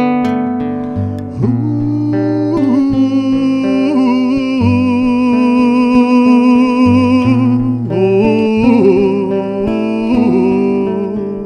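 Acoustic guitar playing live, with a slow melody of long, held notes that waver in pitch laid over it from about a second and a half in. There are no sung words.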